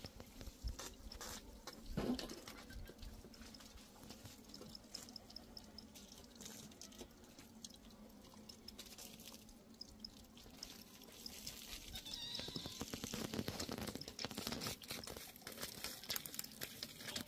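Quiet crunching footsteps on loose, stony ground, with scattered clicks that are densest near the end.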